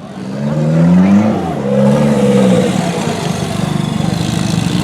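Engine of a modified off-road competition 4x4 truck revving up twice in quick succession, then running on at lower, steadier revs.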